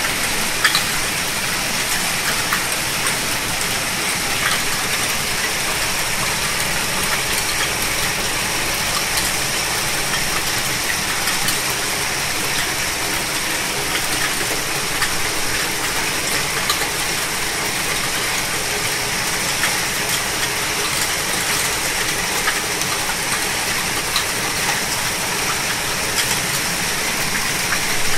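Heavy downpour with hail: a steady, dense hiss of falling water, with scattered sharp ticks of hailstones striking.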